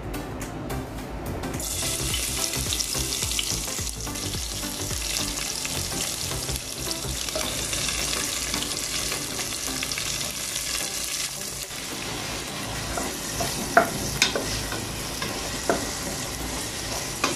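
Chopped onion and garlic sizzling in hot olive oil in a stainless steel pot, with the sizzle starting about a second and a half in. A wooden spoon stirs the pan and gives a few sharp knocks against the pot near the end.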